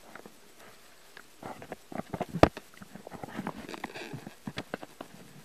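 Light taps and knocks with some rustling as a cat walks about on a table among papers and a plastic bag, with one sharp knock about two and a half seconds in.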